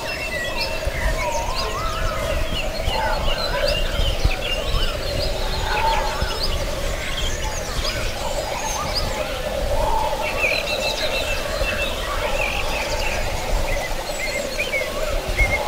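Several songbirds chirping and singing at once, with quick overlapping chirps and whistled glides, over a steady low hum.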